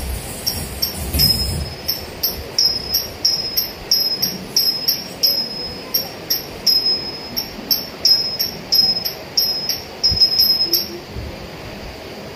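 Small hand cymbals (talam) struck in a steady beat, about two to three clear ringing strokes a second, keeping time for Bharatanatyam dancers; the beat stops about eleven seconds in.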